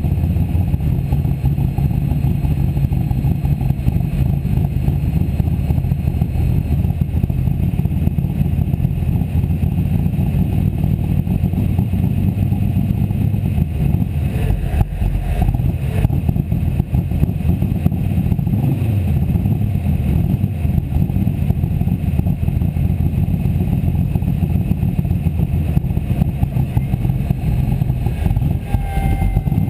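Formula Offroad car's engine idling steadily, heard from inside the open roll-cage cockpit with the car standing still.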